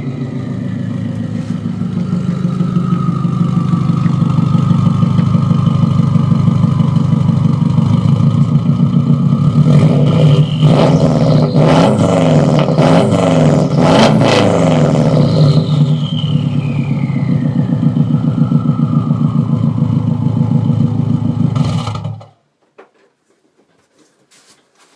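Subaru Forester SG9's turbocharged flat-four running through a loud Blitz NUR-spec 3-inch exhaust, at a steady idle. It is revved several times in quick succession about halfway through, then settles back to idle. The sound cuts off suddenly near the end.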